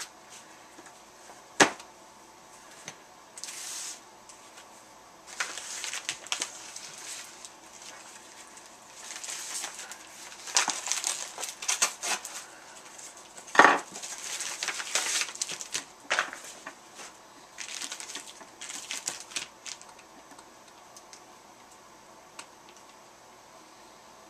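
Irregular rustling and handling of packaging and comic books, coming and going in short spells, with a sharp click about a second and a half in and a louder knock about halfway through.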